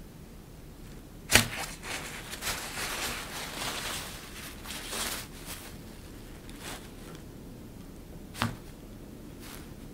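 Crinkly plaid fabric sheet rustling as a cat teaser is pushed around beneath it and pokes up through holes in it. A sharp click about a second in and another near the end stand out above the rustling.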